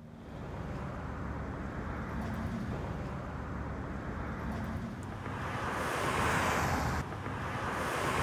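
Wind rushing over the microphone, with the hiss of a vehicle passing on the road swelling and fading near the end.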